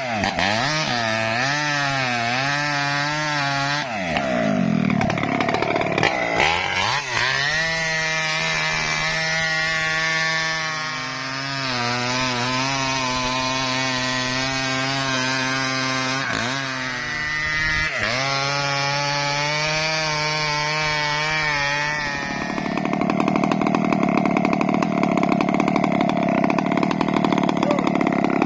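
Chainsaw cutting mahogany wood, its engine pitch wavering up and down as the throttle and load change. About three-quarters of the way through it settles into a steadier, rougher and slightly louder running.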